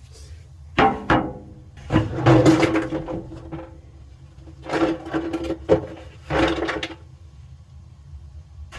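A toolbox being pulled out of an open dryer cabinet: a few bouts of knocking and scraping, with the dryer's sheet metal ringing between them.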